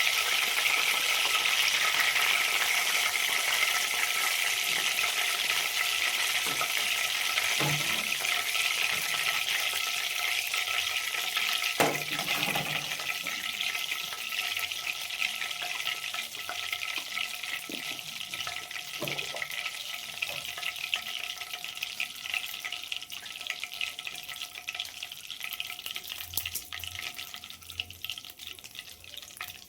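Fish frying in hot oil, sizzling steadily and slowly dying down, with a few knocks about 8, 12 and 19 seconds in.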